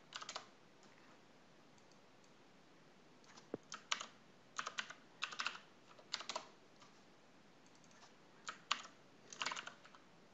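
Computer keyboard typing in short bursts of a few keystrokes each, with pauses of one to three seconds between the bursts.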